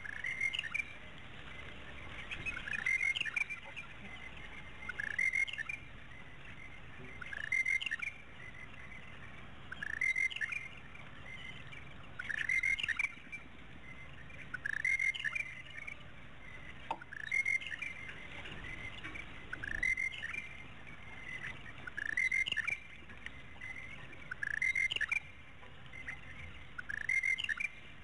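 A bird calling a short phrase of sliding whistled notes over and over, about every two and a half seconds.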